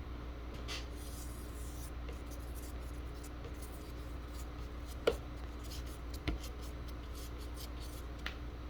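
Faint rubbing and scratching of a flexible TPU glue spreader drawn through PVA glue, with three light clicks or taps over a steady low hum.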